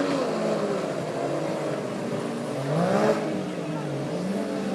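Modified 60 hp outboard racing motors running hard, their pitch rising and falling as they rev through the race.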